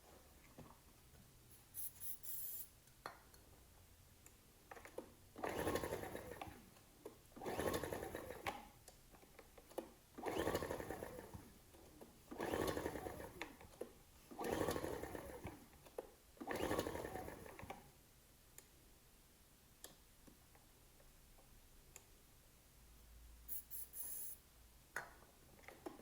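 Ryobi RIG1000 inverter generator's engine being pull-started six times in a row, about two seconds apart, each pull a brief rattle of cranking, without catching. It is being tried on spray starting fluid only.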